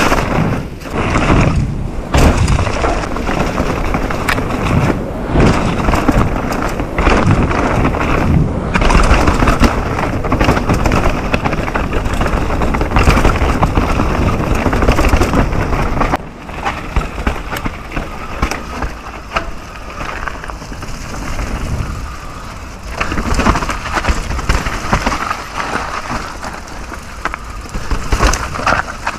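Mountain bike descending a rough trail: tyres rumbling over dirt and rock, with frequent knocks and rattles from the bike over impacts. It is loud, then drops a little past halfway to a quieter, choppier stretch.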